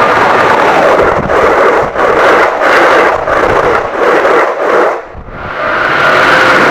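Train passing at speed close by, its wheels beating a regular clatter over the rail joints for several seconds, then running on as a steady rush.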